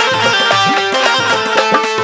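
Instrumental Haryanvi folk music: a dholak keeps the beat, its low strokes bending upward in pitch, under a sustained melody that steps between held notes.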